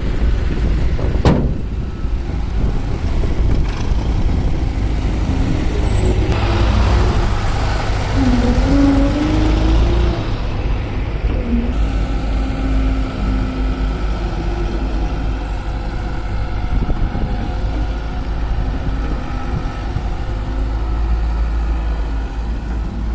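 Heavy diesel excavator working while loading mud, its engine rumbling steadily. From about six to ten seconds in there is a louder stretch of hiss and a whine that rises and falls. There is one sharp knock about a second in.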